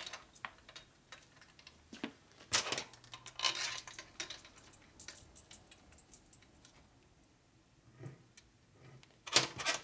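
Small steel bolts and washers clinking and jingling as chrome bolts are handled and fitted into a Harley-Davidson Evo engine crankcase, with scattered sharp metal clicks, loudest near the end.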